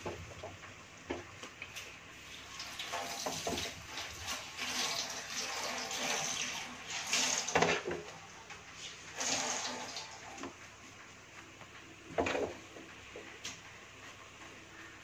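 Cooked rice being spooned into an aluminium pot onto beef masala: irregular scraping and rustling of the spoon and rice, with a couple of sharp knocks of the utensil against the pot, one about halfway through and another near the end.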